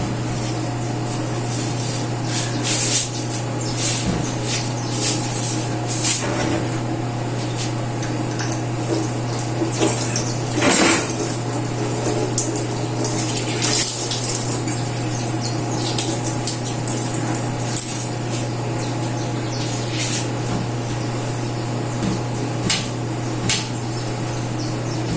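Household cleaning: water running while pots and stove or fridge parts are handled, with scattered clinks and scrapes over a steady low hum.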